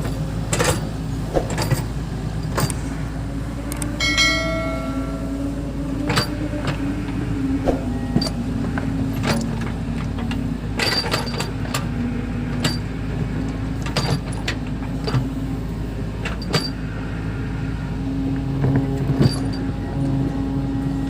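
Bulldozer's diesel engine running and labouring, its pitch rising and falling, with sharp knocks every second or so. A brief high pitched tone sounds about four seconds in.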